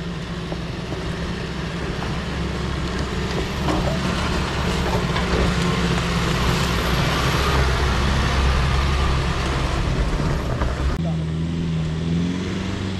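A four-wheel-drive vehicle driving, its engine a steady low drone under road noise that swells towards the middle. The sound changes abruptly about eleven seconds in.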